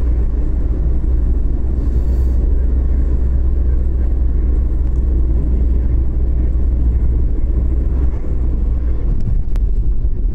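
Steady low rumble of a moving taxi heard from inside the cabin: engine and tyre noise on the road.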